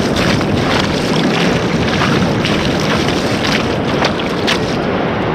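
Surf washing up over wet beach sand, a steady rushing noise, with wind buffeting the microphone.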